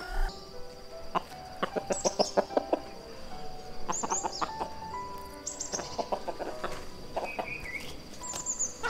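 Chickens clucking in quick runs of short calls, with small birds chirping high and soft background music underneath.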